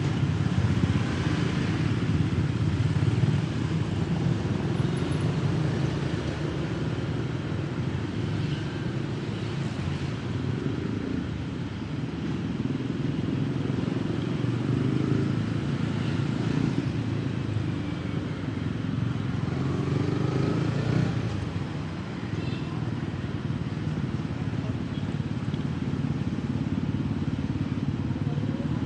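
Dense motorbike and scooter traffic, heard from a motorcycle riding slowly through it: many small engines running together in a steady low rumble.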